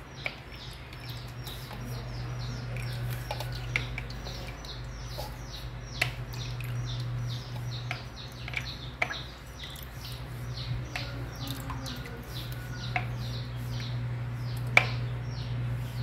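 Small birds chirping continuously, a quick falling note several times a second, over a steady low hum. A few sharp knocks as pieces of blanched squid are dropped into a plastic draining basket; the loudest comes near the end.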